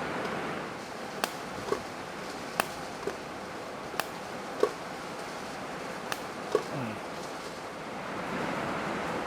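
Rain falling steadily on a metal shop roof, with about eight sharp pings scattered through it.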